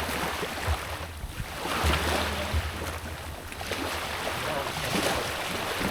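Sea waves washing and swelling with wind buffeting the microphone, giving a gusty low rumble.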